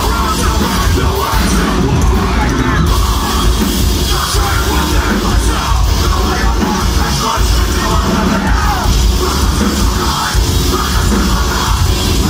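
Metalcore band playing live: heavy distorted guitars, bass and pounding drums with screamed vocals, loud and dense, heard from within the crowd.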